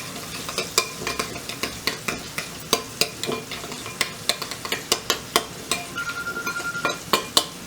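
Spoon stirring mayonnaise-based tartar sauce in a bowl: wet, irregular clicks and scrapes of the spoon against the bowl, with a brief steady tone about six seconds in.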